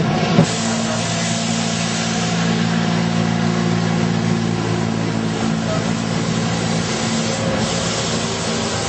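Street sweeper running close by: a steady engine drone with an even hiss over it.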